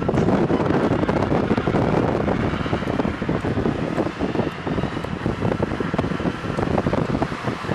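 Wind rushing past an open car window and buffeting the microphone while the car drives, mixed with the car's road noise.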